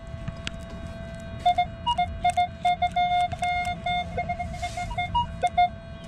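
Minelab Equinox metal detector giving its target tone: a faint steady tone, then from about a second and a half in, a run of short, broken beeps at one pitch as the coil passes over a strong target reading 30 to 31, stopping shortly before the end.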